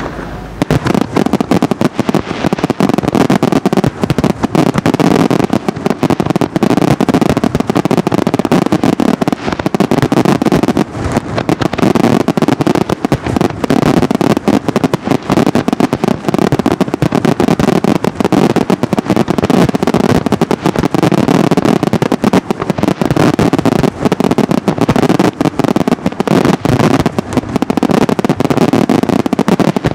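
Palmieri aerial fireworks display firing a dense, continuous barrage of bangs, too many and too close together to count, starting abruptly about half a second in.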